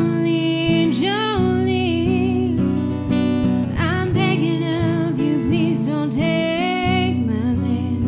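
A woman singing to her own strummed acoustic guitar, a held, gliding vocal line over steady chords.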